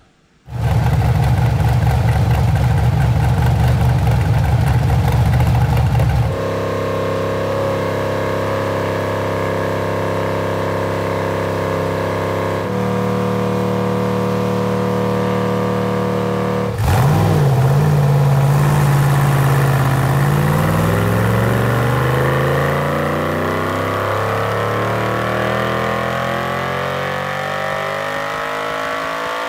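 Ultima RS's GM LS-series V8 running on a chassis dynamometer, held at a few steady engine speeds with sudden steps between them. About 17 seconds in it dips, then pulls smoothly up through the revs in one long rising sweep that cuts off near the end.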